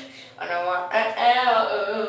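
A voice singing wordless, scat-like syllables without instruments, one phrase starting about half a second in after a short pause.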